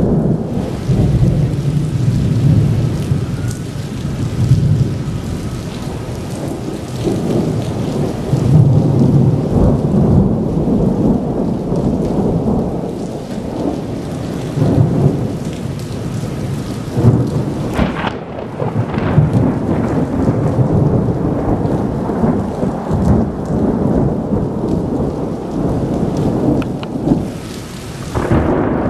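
Thunder rumbling and rolling almost without pause, swelling and fading, over steady rain. There is a sharper crack of thunder about 17 seconds in.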